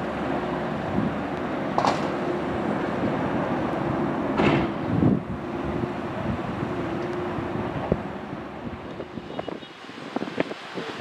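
Jet engine noise of a Boeing 767-300ER rolling out on the runway after landing: a steady noise with a held hum that fades away after about eight seconds. Two brief louder surges come about two and four and a half seconds in, and wind buffets the microphone near the end.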